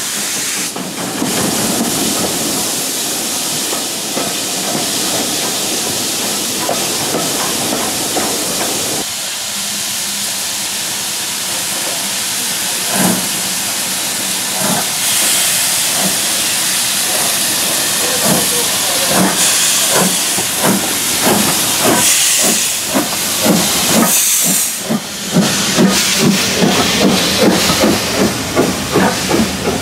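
Steady running noise of a steam-hauled train heard from an open carriage window. About nine seconds in, this gives way to a steam locomotive standing at a platform, hissing loudly. It then gets under way, with sharp exhaust beats that come faster as the train pulls out.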